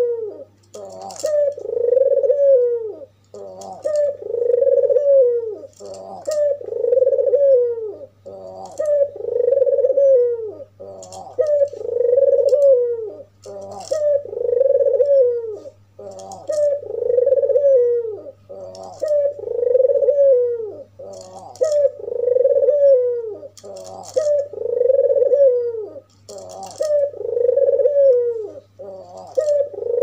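Albino white Barbary dove (puter) cooing over and over, one phrase about every two seconds: a short note followed by a long coo that rises and falls. A steady low hum runs underneath.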